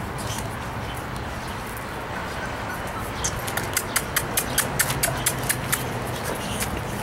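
Bullmastiff puppies' claws clicking and tapping on concrete as they walk about, a quick run of sharp clicks starting about three seconds in, several a second, over a steady low hum.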